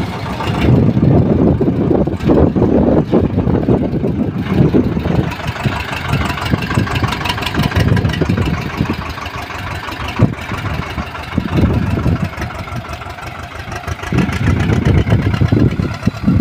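Swaraj farm tractors' diesel engines running as they pull loaded trolleys across a field, one passing close by.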